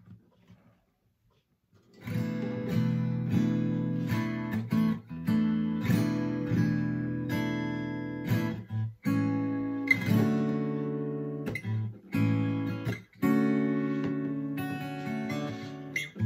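Fender DG60CE acoustic guitar, freshly strung with Ernie Ball Earthwood bronze extra light 10-50 strings, strummed in ringing chords, picked up by a phone's microphone. The playing starts about two seconds in, after near silence, and has a few short breaks between chord changes.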